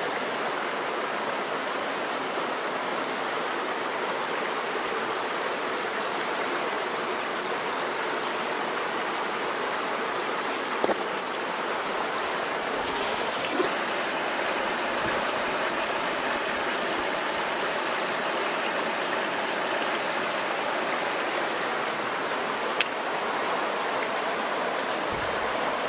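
Shallow stream running over a gravel bed: a steady, even rush of flowing water, with a few faint clicks.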